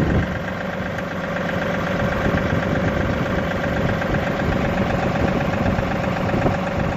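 John Deere 2038R compact tractor's three-cylinder diesel running steadily, a little louder from about a second in as its hydraulics raise the three-point rock shaft to take the weight off the backhoe.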